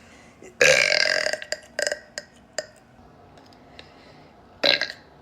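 A young woman burping loudly: one long burp about half a second in, then a shorter burp near the end, with a few short clicks between.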